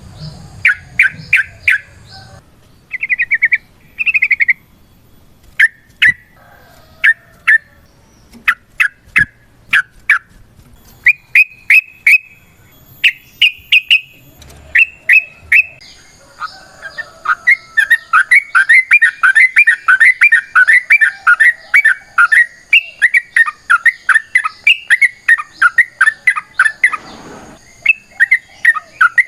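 Yellow-vented bulbul (trucukan) singing loudly: scattered short, clear chirping phrases, then from about halfway a long, fast chattering run of notes lasting some ten seconds. After a brief break the chatter starts again near the end. A faint, high, rapidly repeated note runs underneath in the second half.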